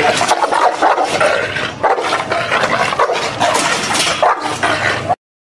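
Dog barking repeatedly and aggressively behind a kennel fence. The sound cuts off abruptly near the end.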